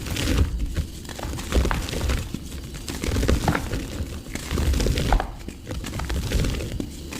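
Mud crumbling and breaking apart: a dense run of irregular crunches and sharp cracks, easing off briefly a few times.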